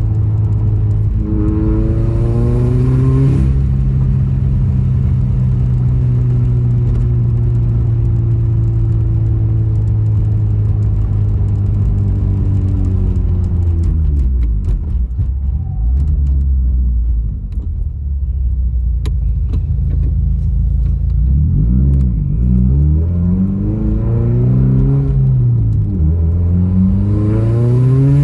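Subaru WRX's turbocharged FA20DIT flat-four engine being driven hard: revs climb and drop back at a gearshift, hold steady at cruise, fall off the throttle, then climb again through several gears near the end. Under wide-open throttle it runs without throwing misfire counts; the cylinder 3 misfire shows only at startup.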